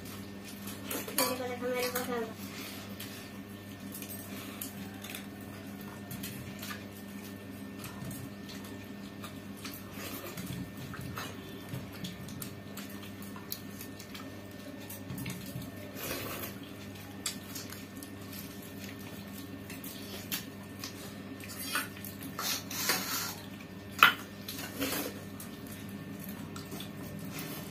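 Stainless steel plates and bowls clinking and scraping as people eat with their hands, with scattered small clinks and one sharp, loud clink about three-quarters of the way through. A steady low hum runs underneath.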